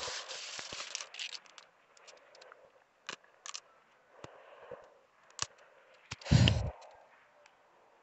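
A hand scrabbling in loose garden soil and rustling sweet potato vines while digging out a sweet potato, with scattered small crackles and clicks. A single loud, heavy thump comes about six seconds in.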